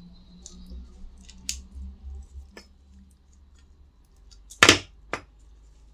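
Side cutters snipping through the thin sheet-metal front shield of an EM80 magic eye tube: two sharp snaps about half a second apart near the end, the first the louder. Faint handling clicks come before them.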